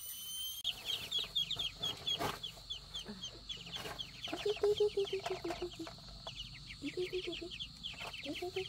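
A brood of ducklings peeping over their feed: a rapid, constant stream of short, high, falling peeps.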